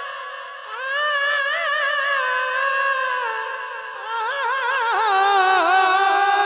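A naat singer holding long notes with vibrato on a drawn-out syllable, breaking into quick ornamented turns about two-thirds of the way through.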